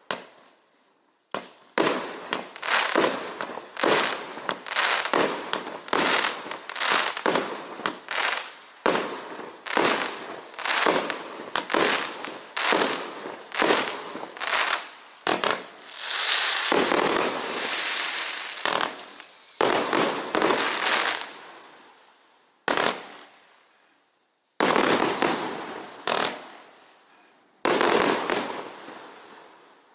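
192-shot compound consumer fireworks cake firing: sharp shots about two a second, then several seconds of continuous dense fire, and after a short gap three separate loud shots near the end.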